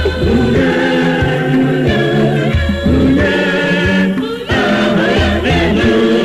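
A Catholic parish choir sings an Igbo gospel song in several voice parts over a steady low bass.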